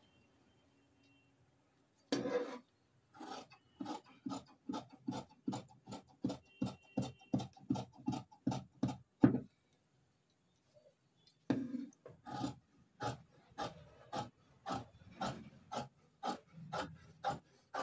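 Large tailor's shears cutting through cloth, a steady run of snips about two a second, with a pause of about two seconds in the middle. A single knock about two seconds in comes before the cutting starts.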